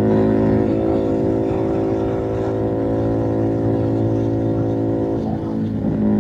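Keeway SCR 250 motorcycle with a Rez Speed aftermarket exhaust running at a steady cruise, a deep, mellow exhaust note. About five seconds in the note wavers and shifts in pitch as the throttle changes.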